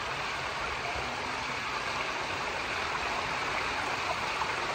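Steady rush of water running down the start of a water slide.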